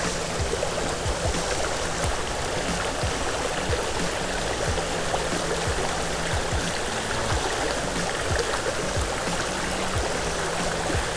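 Shallow rocky creek rushing over a riffle, a steady close-up sound of running water.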